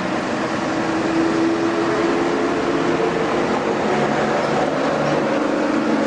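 Construction machinery running steadily: a dense mechanical rumble with a faint, wavering engine tone.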